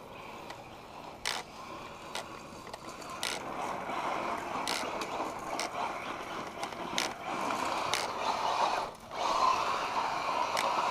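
A 1/8-scale electric RC truck with a Castle Sidewinder 8th ESC and 2200 kV brushless motor running on gravel: a rushing drivetrain and tyre noise that grows louder about four seconds in and dips briefly near nine seconds, with scattered sharp clicks that the owner puts down to rocks in the uncovered driveshaft.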